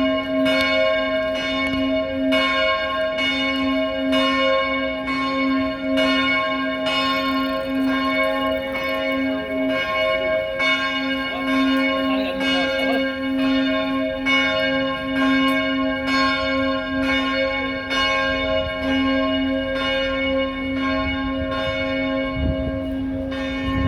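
A single church bell tolling, struck about once a second, its deep hum and overtones ringing on between strokes.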